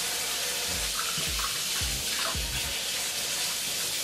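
Kitchen faucet running a steady stream of hot water into the sink, an even hiss.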